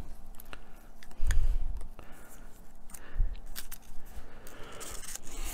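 A hobby knife blade clicking and scraping as it lifts the paper backing off a thin wooden deck sheet, and the backing peeling away with a rustle near the end. Two dull knocks, about one and three seconds in.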